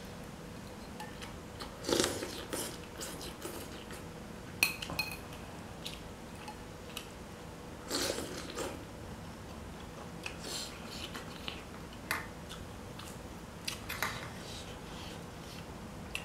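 A man eating rice by hand from a plastic plate: intermittent chewing and mouth sounds with light knocks of the dishes, and one sharp clink about four and a half seconds in.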